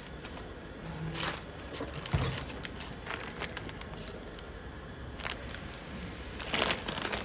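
Foil packet crinkling in scattered bursts as it is picked up and turned over in the hands, with a dull thump a little after two seconds in.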